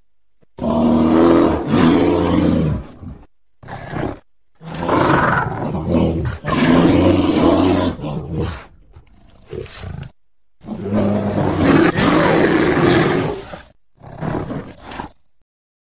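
Bear roaring and growling: a series of loud, rough roars, the longest lasting several seconds, broken by short pauses and a few briefer growls.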